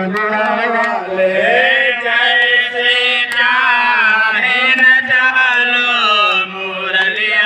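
Men singing a Hindi devotional bhajan. The lead voice is sung into a handheld microphone, and other male voices sing along.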